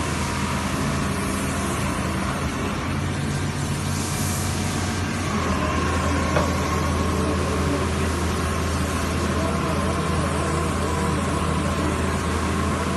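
Excavator diesel engine running steadily under load while driving a hydraulic auger drill into the ground, a constant low hum with a thin steady whine over it.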